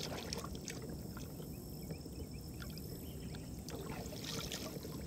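Quiet water trickling and lapping against a kayak hull, with a few small knocks.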